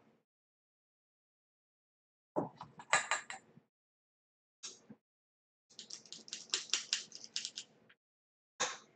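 Small stainless steel bowl and utensils clinking against each other and the tile counter in several short bursts, the longest a run of rapid clinks lasting about two seconds in the second half.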